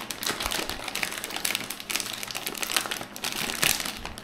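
Small plastic snack packet crinkling and crackling as it is pulled open and handled, a dense run of quick, irregular crackles.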